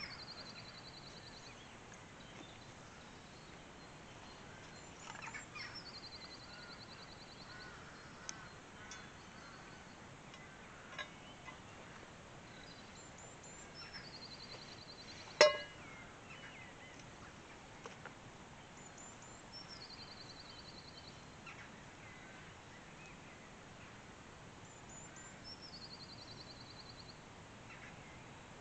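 A songbird sings a short high phrase, a quick note and then a rapid even trill about a second long, repeated about every six seconds. Faint clicks, and one sharp knock about halfway through.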